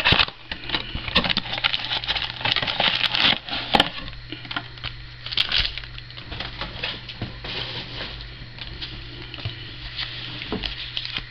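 Trading-card box and pack packaging being handled and opened: a run of small crackly clicks and rustling, over a low steady hum.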